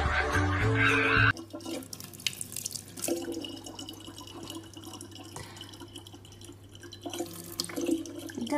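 Background music for about the first second, then it cuts off abruptly. A thin stream of water then trickles steadily from a tap into the neck of a plastic water bottle, over a faint steady hum.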